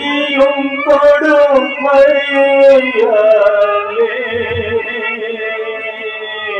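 A man singing long, held notes over musical accompaniment. The last note is held steadily from about halfway through.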